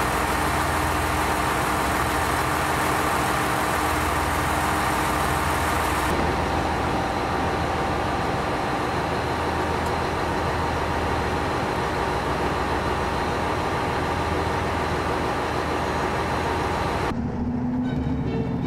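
Diesel engines of a KiHa 187 railcar idling at the platform: a steady hum with a few constant tones. About a second and a half before the end it cuts to a light string tune.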